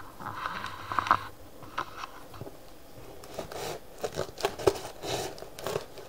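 Crinkling, rustling and scattered light knocks as a cardboard parcel and its packaging are handled, busiest in the second half.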